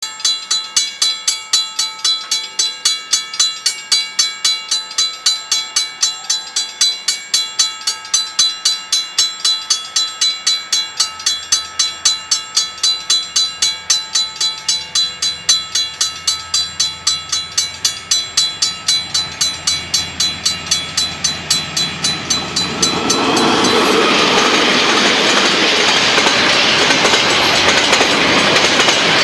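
An old mechanical level-crossing bell rings in quick, even strokes, about three a second. About three-quarters of the way through, a freight train's wagons start rolling across the crossing, and their steady rumble and wheel clatter drown out the bell.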